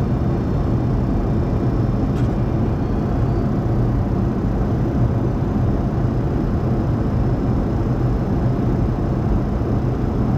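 Steady flight-deck noise of a Boeing 737-200: a constant low hum from its JT8D engines under a rushing of air, with one faint click about two seconds in.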